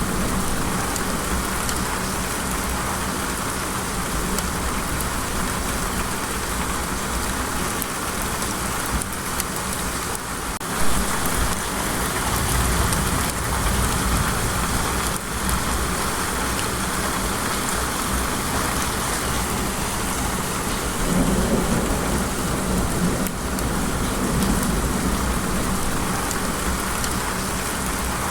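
Steady rain, an even dense hiss, with a low rumble underneath. There is one brief louder crack about eleven seconds in.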